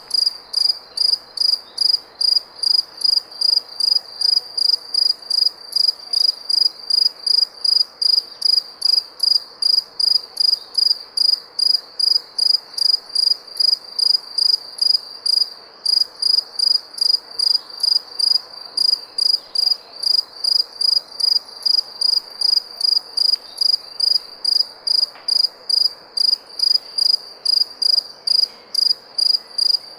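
A cricket chirping in a steady, even rhythm, about three short high-pitched chirps a second, over a faint background hiss.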